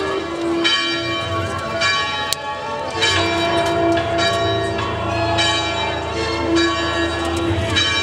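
Church bells ringing in a repeated peal, struck about once a second with each stroke left ringing, over a steady low hum.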